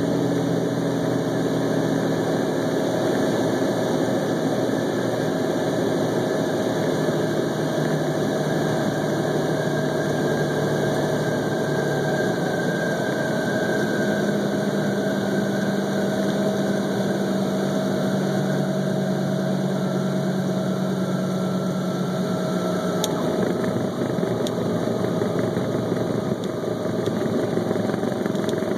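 Cessna 206's single piston engine and propeller running, heard from inside the cockpit during the approach, flare and landing roll, at reduced landing power. The engine note steps to a different pitch a couple of times as the power setting changes.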